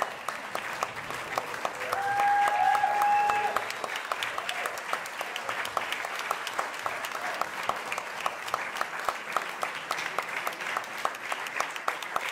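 Audience applauding steadily, a dense patter of many hands clapping. About two seconds in, a single held high tone rises above the clapping for about a second and a half.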